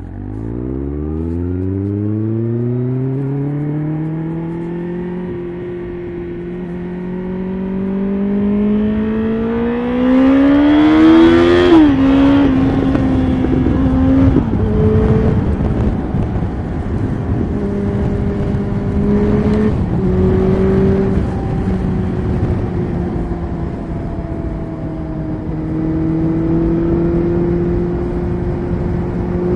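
Sport motorcycle engine accelerating hard, its pitch climbing for about ten seconds, then dropping sharply with an upshift. Several more gear changes follow, then steadier running at speed.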